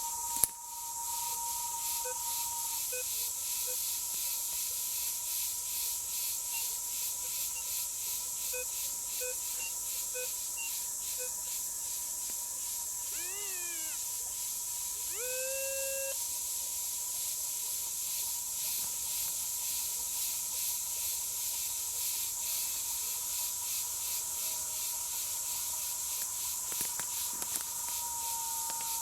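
Woodland insects keep up a steady, high, fast-pulsing buzz, with birds giving short chirps and a couple of longer, swooping calls. A steady thin high tone runs underneath, and there is one sharp click about half a second in.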